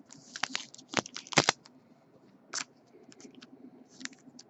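2014 Bowman Chrome football cards being handled and flipped through a stack by hand: a run of light, irregular clicks and card-on-card rustles, the sharpest a little over a second in.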